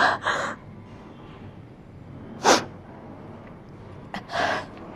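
A woman crying: a few short gasping sobs and sniffles, spaced a second or two apart.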